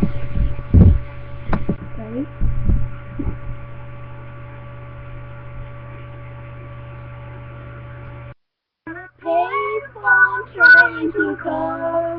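Steady electrical mains hum through a webcam microphone, with a few low knocks and bumps in the first few seconds. It cuts off suddenly about eight seconds in, and after a short silence a young voice starts singing.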